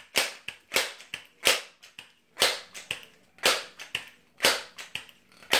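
Crosman 1322 multi-pump pneumatic air pistol being pumped, about one stroke a second. Each stroke is a sharp, short whoosh, with lighter clicks between the strokes.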